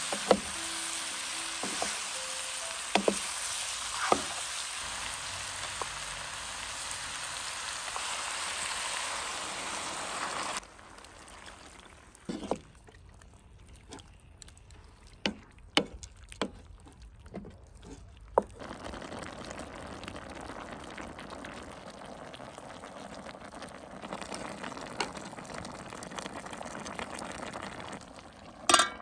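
Beef tongue chunks, carrots and onions sizzling in a frying pan over a wood fire. The loud sizzle drops off suddenly about ten seconds in, and a handful of sharp knocks of the wooden spoon stirring against the pan follow. A softer steady sizzle comes back, and a loud knock sounds near the end.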